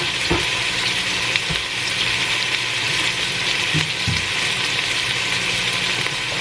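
Chicken fillet pieces sizzling steadily in hot oil in a pot, with a few light knocks of a cooking utensil against the pot. A faint low steady hum runs underneath.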